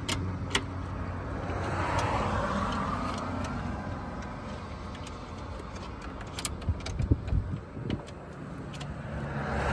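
A car passing on the road, its noise rising and fading about two seconds in and building again near the end, over a low steady rumble. Scattered sharp metallic clicks come from a socket and extension as the strut-brace bolts are threaded in by hand.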